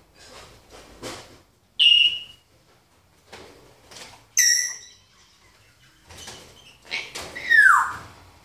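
Timneh grey parrot whistling and calling: a short sharp whistle, a loud harsh call about halfway, and a whistle that slides steeply down near the end, with softer rustling between.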